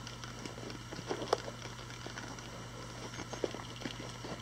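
Faint handling noises: scattered light clicks and rustles of small survival-kit items being picked up and set down, the sharpest tick about a second in, over a steady low hum.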